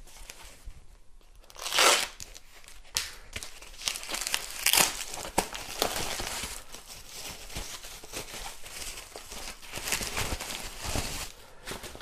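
Paper packing being crumpled and torn as a new unicycle pedal is unwrapped: a run of crackling rustles with a loud rip about two seconds in and several sharper crinkles after it.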